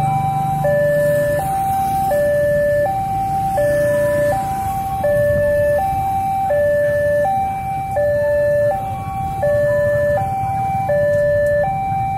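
Railway level-crossing warning alarm: an electronic two-tone signal alternating between a lower and a higher tone, swapping about every three quarters of a second, warning of an approaching train as the boom barrier comes down. A steady low rumble of idling traffic lies underneath.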